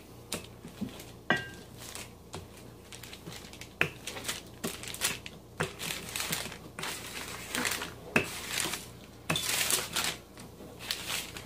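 Wax paper crinkling and rustling under a wooden rolling pin as pie crust dough is rolled out, with irregular light taps and clicks of the pin; a longer rustle about nine seconds in as the paper slides.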